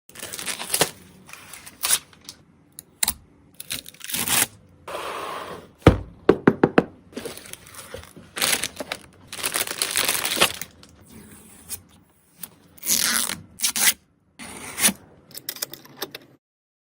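Hands handling packaging and computer parts: tearing, crinkling plastic, scraping and knocks in short separate bursts, with a quick run of clicks about six seconds in. Several bursts stop abruptly, as if cut between clips.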